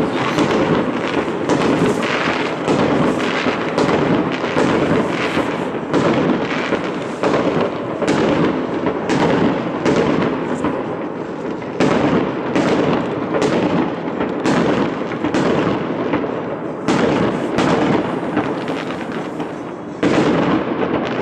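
Aerial fireworks bursting overhead in quick succession: a steady run of sharp bangs, about one to two a second, over a loud haze that never dies away between them.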